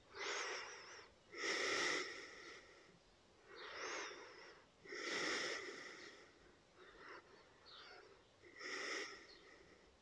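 A man breathing slowly and audibly in and out, about five soft breaths of around a second each with short pauses between them.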